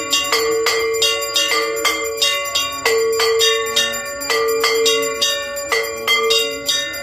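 Metal temple bell rung steadily for aarti, about two to three strikes a second, each strike ringing on into the next.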